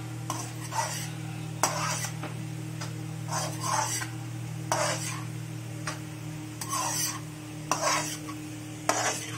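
Metal spatula scraping and stirring macaroni around a metal kadai, in repeated short strokes roughly one a second, over a steady low hum.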